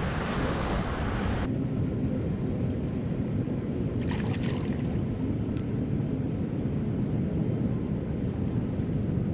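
Wind rumbling on the microphone over water moving along a kayak's hull while trolling. A higher hiss cuts off suddenly about a second and a half in.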